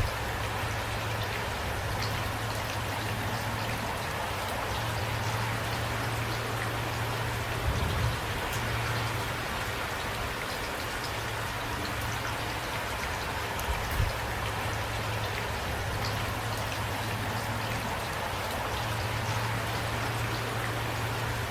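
Steady light rain falling, with individual drops heard hitting a surface. Two louder dull thuds come about 8 and 14 seconds in.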